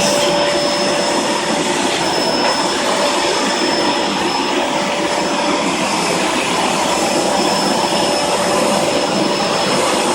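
Vacuum cleaner running steadily: a constant rush of air with a steady high whine over it.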